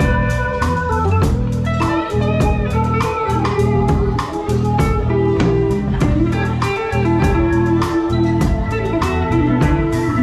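Live band music with electric guitar and a drum kit keeping a steady beat, in a bluesy style.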